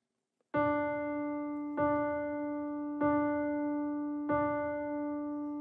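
Solo piano opening a slow ballad: the same chord struck four times, about one and a quarter seconds apart, each left to ring. It starts about half a second in.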